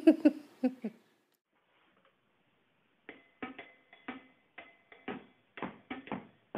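A few short voice sounds, then after a pause a musical instrument starts playing a tune, note by note, about two notes a second.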